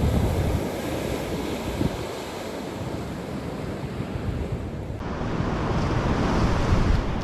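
Ocean surf breaking and washing ashore, with wind buffeting the microphone in a low rumble.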